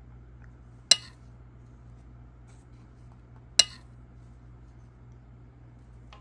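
Two short, sharp clinks of metal cutlery on a plate, the second about two and a half seconds after the first. The utensils seen are paper cut-outs, so the clinks are a dubbed cutlery sound effect.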